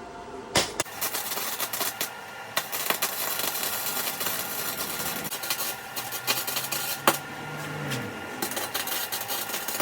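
Electric arc welding on steel box section: a dense, uneven crackle of the arc, starting about a second in after a sharp click, with a few sharper pops along the way.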